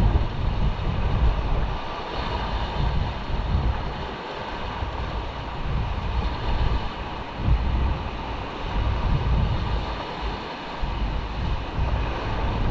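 Wind buffeting the microphone in uneven gusts, over the wash of small waves breaking against shoreline rocks.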